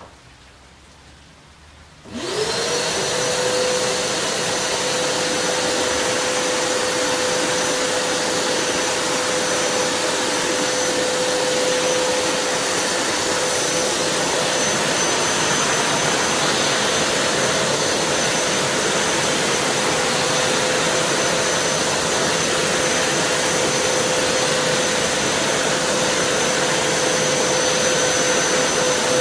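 Karcher WD 4.200 wet-and-dry vacuum cleaner switched on about two seconds in, its motor spinning up quickly and then running steadily, a constant tone over the rush of air.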